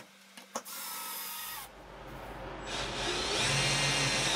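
Cordless drill driving screws through a metal hinge bracket into a wooden wall: a short run of motor whine starting just under a second in, then a longer, louder run from about two-thirds through.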